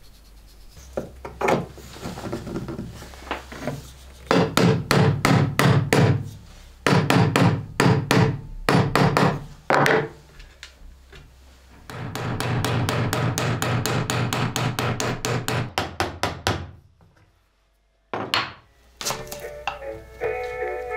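Small hammer tapping rapidly on metal, peening the end of a knife's tang that is clamped in a bench vise. The strikes come in quick runs of several a second, with a longer unbroken run in the second half, and stop shortly before the end.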